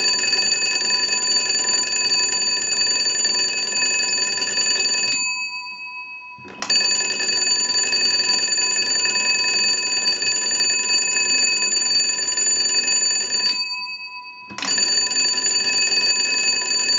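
Stromberg-Carlson wooden wall crank telephone's twin brass bells ringing steadily as its magneto crank is turned by hand. The ringing comes in three long spells, with brief pauses about five and fourteen seconds in.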